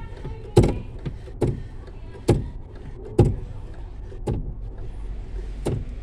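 Mitsubishi L200 clutch pedal pumped by hand, giving a sharp knock with each stroke, six in all at a bit under one a second. The pumping pushes fluid through the rebuilt clutch master cylinder until the pedal firms up.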